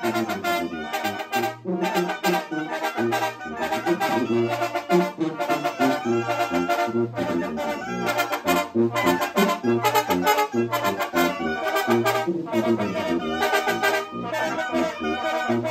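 Mexican brass band of clarinets, trumpet, baritone horns and tuba playing a lively dance tune, the tuba carrying a steady bass line under the melody.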